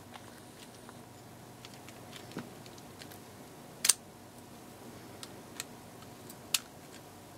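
A few scattered sharp clicks and taps of clear acrylic pieces knocking together as they are handled and slotted into place, the loudest about four seconds in and another near the end.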